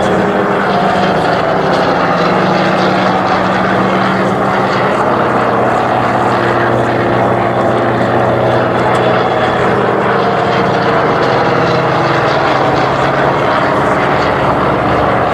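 Propeller-driven aircraft's piston engine running, a loud steady drone with an even pitch.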